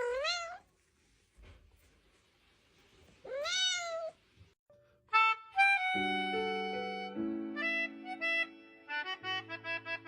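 A cat meows twice, the calls about three and a half seconds apart; then music with held notes begins about halfway through and runs on.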